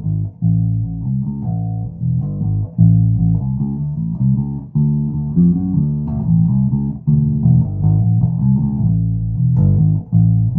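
Birdsong Cortobass short-scale electric bass playing a continuous line of plucked notes, with both pickups on and the tone control rolled back.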